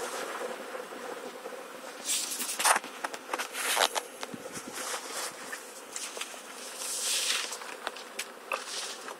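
Honeybee swarm buzzing steadily as it crawls into a hive, with several short bursts of louder hiss about two to four seconds in and again around seven seconds.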